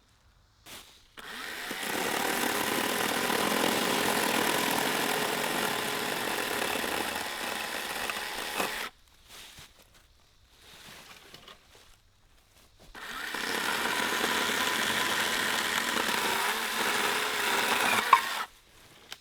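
Battery electric chainsaw cutting through small wood: two steady cuts, the first about seven seconds long and the second about five, with a short pause between them.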